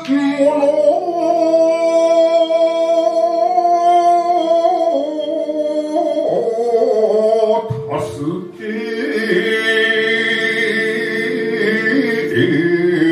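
Man chanting shigin, Japanese poetry recitation, in long drawn-out notes that waver and bend in pitch, over a steady sustained instrumental accompaniment. About eight seconds in the voice breaks off briefly, then starts a new long phrase.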